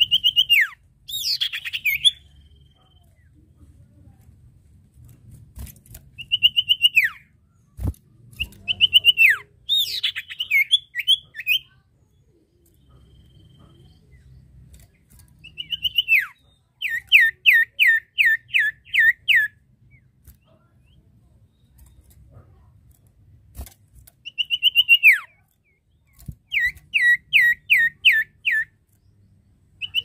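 A caged sirtu (common iora) singing its 'nyiull' call, sliding downward in pitch and given again and again, mixed with two quick runs of about eight clipped, evenly spaced notes. This is the challenging call it uses toward a rival. Two short clicks can be heard, and a faint low hum runs underneath.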